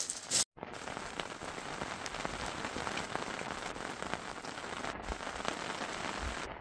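Heavy rain falling, a steady hiss thick with the sharp ticks of single drops striking close to the microphone.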